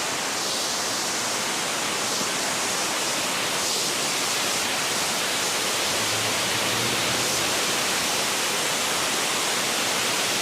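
Waterfall: a steady, loud rush of water falling close by, with no break or change in level.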